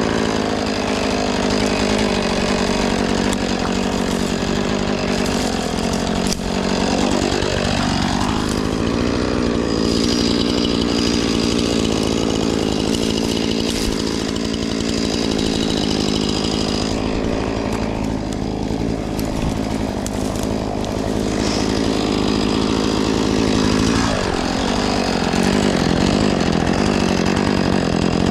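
Husqvarna 450 Rancher two-stroke chainsaw running at high revs, cutting through a fallen tree. Its pitch shifts a couple of times as the load on the chain changes.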